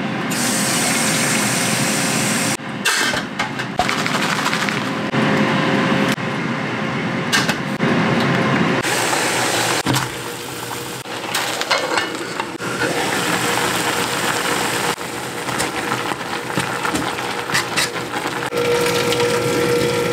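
Kitchen cooking sounds in a string of short cuts: tap water running into a small aluminium pot, then instant noodles cooking in boiling water on the hob, with the pot and its lid being handled.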